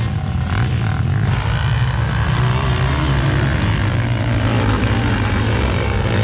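Several motocross dirt bikes racing together, their engines blending into a steady drone with some rising and falling revs.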